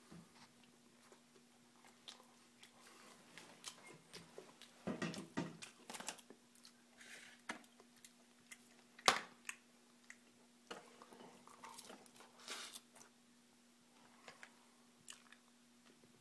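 A person chewing a sandwich close to the microphone, faint bites and chewing with scattered clicks and rustles, over a faint steady hum.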